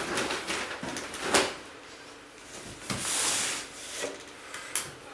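Plastic bags rustling as they are handled, with a few light knocks and taps.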